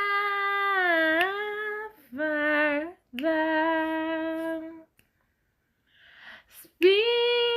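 A female voice singing a slow worship chorus a cappella, with long held notes on "Father". About five seconds in there is a short silence and a breath before the next note.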